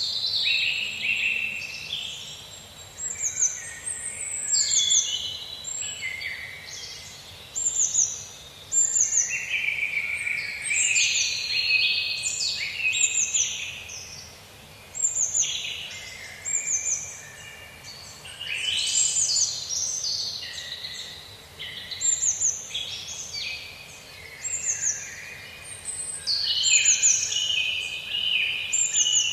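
Several songbirds chirping and singing in an overlapping chorus of short, quick, falling whistles and twitters, over a faint steady background hiss.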